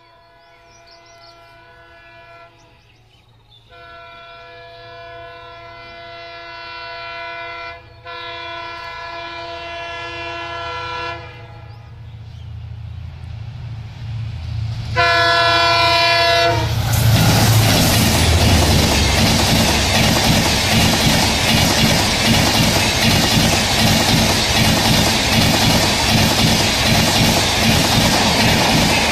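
A WDP4D diesel locomotive's horn sounds in several long blasts that grow louder as the train approaches, ending in a short, loud blast just past the middle. The locomotive and its coaches then rush past at about 110 km/h, with a loud rushing noise and a fast clickety-clack of wheels over the rail joints that lasts to the end.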